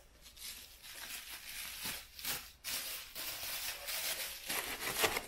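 Plastic bubble wrap crinkling and rustling in irregular spurts as it is handled and unwrapped.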